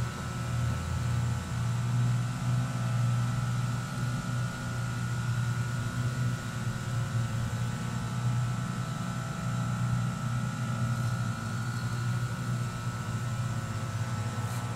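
Steady hum of running machinery, a low drone with a fainter high whine above it, holding even throughout.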